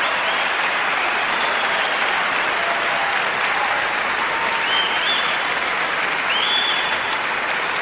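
Concert-hall audience applauding steadily after a song, with a couple of short, high rising whistles from the crowd about five and six and a half seconds in.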